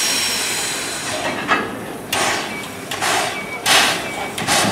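Steam locomotive C56 160 hissing steam, then starting to chuff about two seconds in: sharp exhaust beats roughly every 0.7 s as it moves off slowly under its own steam.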